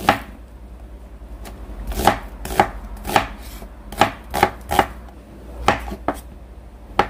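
Kitchen knife slicing an onion into long strips, then mushrooms, on a wooden cutting board. Each cut ends in a sharp knock of the blade on the board, about a dozen at an uneven pace.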